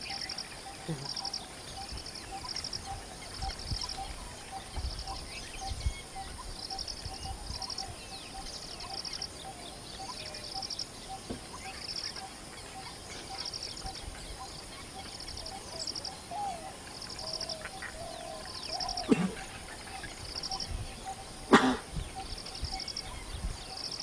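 Outdoor wildlife ambience with a short, high trilled chirp repeating about once a second and faint scattered bird calls. Two brief louder sounds break in during the last third.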